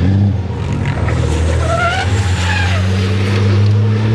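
Racing trucks' diesel engines running through a corner as a pack passes, a steady low drone, with a brief wavering squeal about two seconds in.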